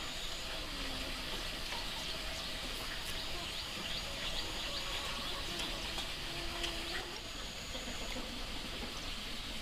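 A person eating noodles with chopsticks from a porcelain bowl: soft slurps and small clicks, most of them a few seconds in. Underneath is a steady high-pitched outdoor background with a thin high buzz that comes and goes.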